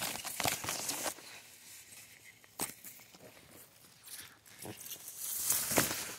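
Leaves and plant stems rustling and brushing against the phone as it is pushed through foliage, in a few bursts of rustling with one sharp tick about two and a half seconds in.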